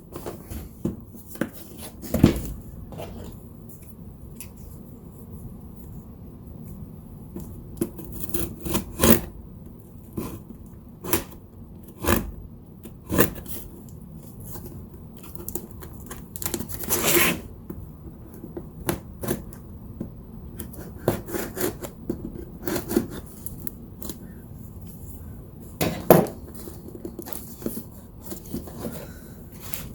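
Cardboard box and packaging being opened and handled: scattered scrapes, rubs and light knocks, with one longer scrape about seventeen seconds in.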